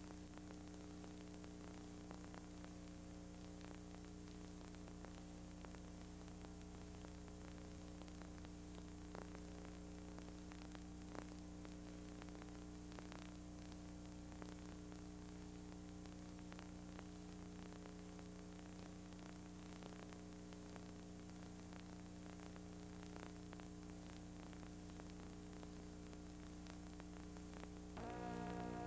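Faint steady electrical hum with hiss and a few scattered faint clicks. Music begins just before the end.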